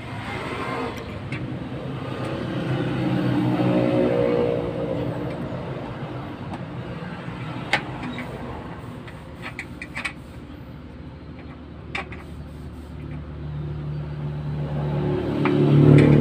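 Motor vehicle engine sound that swells and fades twice, loudest near the end, like vehicles driving past. A few sharp clicks are heard in between.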